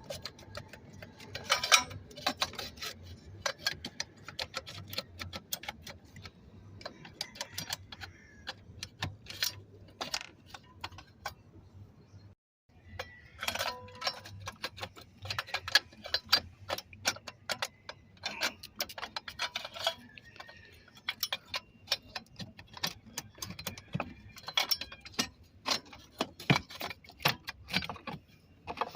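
Irregular metallic clicks and clinks of fuel injectors, their retaining clips and the fuel rail being worked loose by hand, over a faint low steady hum. A brief gap breaks the clicking about halfway through.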